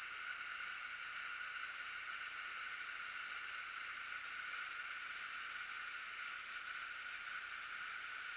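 River water pouring over a waterfall on the Isar, a steady, even rush with no change.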